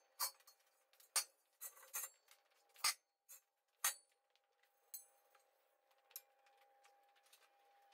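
Faint, scattered metallic clinks and knocks from steel tractor wheel rims being rolled and set down, with the sharpest knocks about three and four seconds in.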